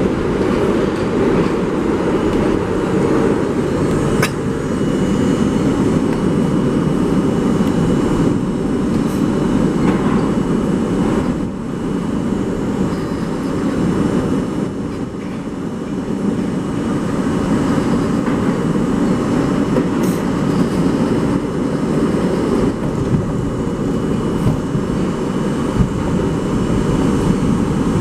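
An R32 New York City subway car running through a tunnel, heard from inside the car: a loud, steady rumble of wheels and running gear with a few sharp clicks over the rails, easing briefly about halfway through.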